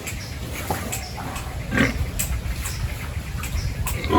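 Domestic pigs grunting in short, separate grunts, a few times, over a low steady rumble.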